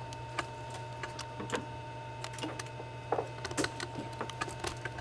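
Scattered small clicks and taps as a hard drive's circuit board and small tools are handled, uneven and about a dozen in all, the sharpest just past three seconds in, over a steady low hum.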